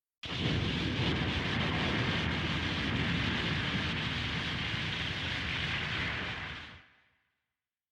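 Large fire burning steadily with a dense roar of flames. It starts abruptly and fades out near the end.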